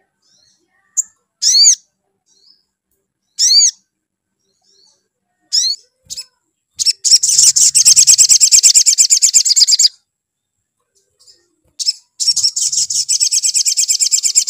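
Male olive-backed sunbird singing: a few short separate chirps, then a long rapid trill about seven seconds in lasting about three seconds, and another rapid trill starting near the end.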